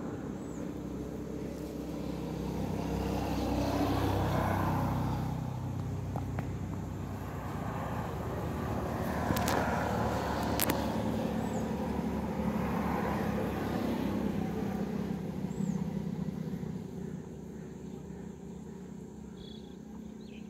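Engine noise: a steady low hum with louder swells every few seconds, and two sharp clicks about halfway through.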